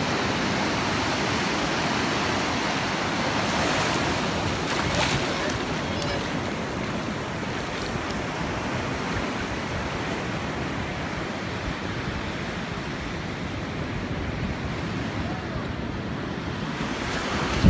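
Surf washing onto a sandy beach, a steady rush of waves, with wind buffeting the microphone.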